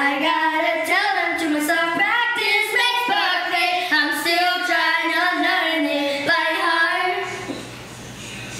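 Young girls singing a pop song into handheld microphones, with long held notes that glide in pitch. The singing stops about seven and a half seconds in.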